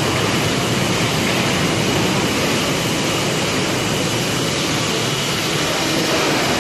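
Loud, steady construction-site machinery noise, an even hiss and rumble with no distinct knocks or clanks.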